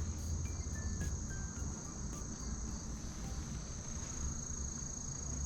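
Insects trilling in one steady, continuous high tone over a low rumble, with a few faint taps near the start.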